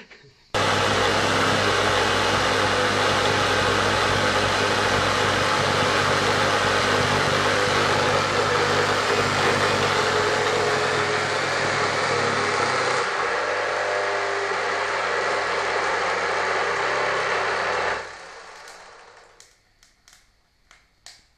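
The electric motor of a homemade table saw built from a circular saw, switched on with its rotor burnt out: it runs loud and rough with a strong hum and gives off smoke as it fails. About 18 seconds in it cuts off and winds down with a few scattered clicks.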